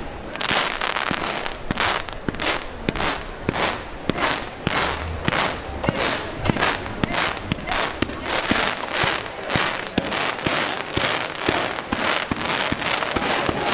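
Fireworks display firing a rapid, even run of loud bangs, about three a second.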